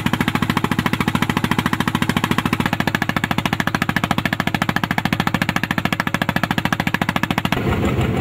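Fishing boat's engine running with a rapid, even chugging beat, heard from on board. Near the end the beat gives way to a smoother, steadier engine noise.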